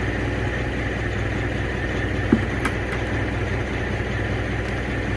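Oshkosh deice truck's engine idling steadily. A single short knock a little over two seconds in.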